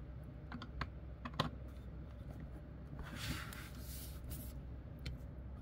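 Thin rods of a toy display stand being pushed into the stand's base: a few faint clicks and taps in the first second and a half, and a brief soft rustle about three seconds in.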